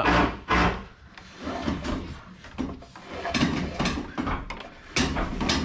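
Electrical cable being pulled through drilled holes in timber studwork, rubbing against the wood and the other cables in several scraping pulls.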